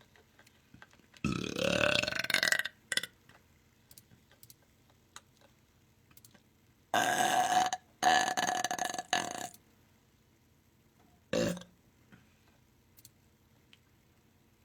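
A person letting out long, loud burps: one about a second in, two back to back around seven to nine seconds, and a short one near eleven and a half seconds.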